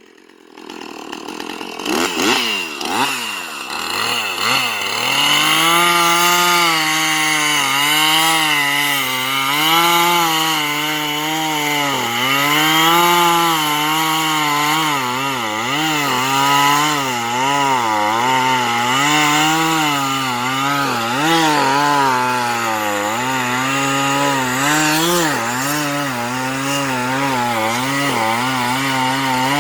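Husqvarna two-stroke chainsaw revving up, then cutting into a standing pine tree. Its engine pitch dips and recovers over and over as the chain bites under load.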